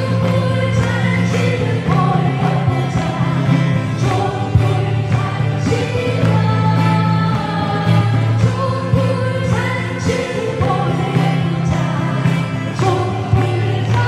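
A clear-voiced female singer singing a song with instrumental accompaniment, over a steady bass line.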